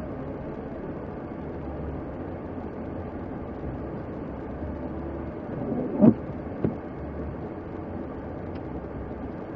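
Steady low rumble of outdoor street noise, with two sharp thumps about half a second apart around six seconds in.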